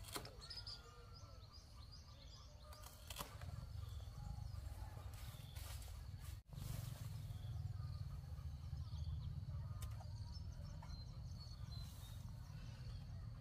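Outdoor rural ambience: a steady low rumble with faint, scattered chirps and a few light clicks. The sound drops out briefly about six and a half seconds in, and the rumble is louder after it.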